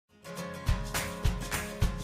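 Background music with a steady beat of low thumps, starting just after the opening.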